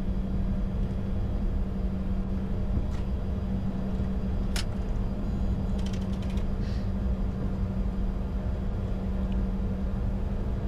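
Cockpit noise of a Bombardier Challenger 605 business jet taxiing after landing: a steady low rumble with a constant hum. A few short clicks sound about four and a half seconds in and again around six seconds.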